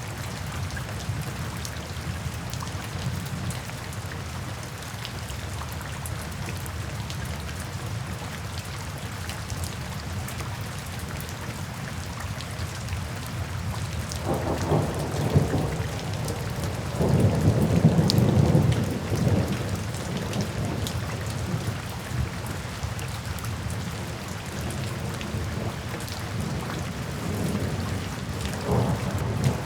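Steady rain falling, with thunder rumbling in several swells: one about halfway through, a longer, louder roll a few seconds later, and a shorter one near the end.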